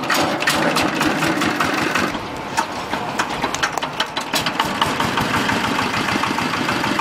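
Small single-cylinder diesel engine on a corn thresher running steadily with a rapid, uneven clatter of knocks, belted to the thresher's drum.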